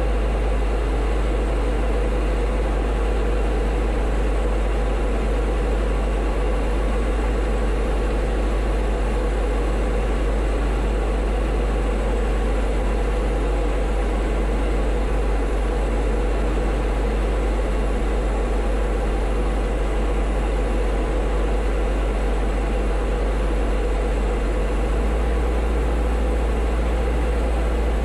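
Diamond DA-20 light aircraft's piston engine and propeller droning steadily in flight, heard from inside the cockpit. The low hum shifts slightly near the end.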